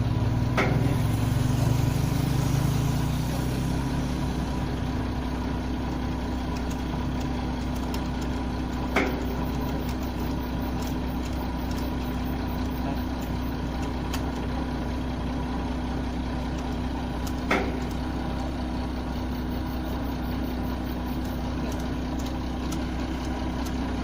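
Hitachi ZX210F-5G excavator's diesel engine running steadily, a little louder for the first few seconds. Three short sharp knocks come several seconds apart.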